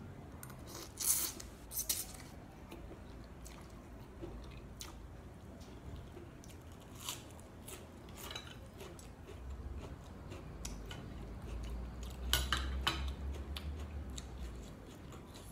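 A metal fork clinking and scraping on a ceramic plate, with close chewing and slurping of spicy glass noodle salad with boneless chicken feet. The clicks come scattered, loudest about a second in and again around twelve seconds in.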